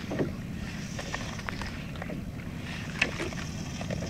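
Small waves slapping and splashing against a sit-on-top kayak's hull, with steady wind rumble on the microphone and a few light knocks.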